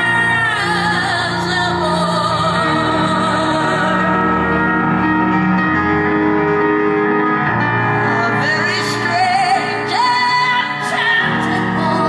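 Live song: a high male voice sings a long, wavering line with wide vibrato over sustained keyboard chords.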